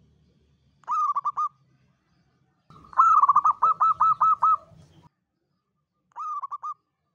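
Zebra dove (perkutut) cooing in three phrases of quick, repeated notes: a short phrase, then a longer and louder run of about eight notes, then another short phrase near the end.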